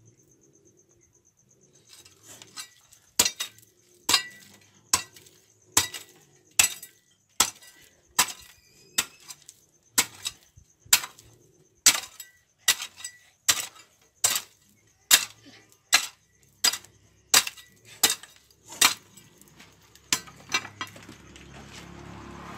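Metal hoe blade chopping into stony dirt, a sharp clinking strike a little more than once a second, about twenty in all, starting a couple of seconds in and stopping near the end.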